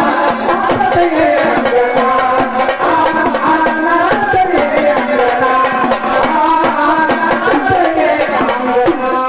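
Marathi gondhal folk music: a fast, steady drum rhythm under a moving melody line.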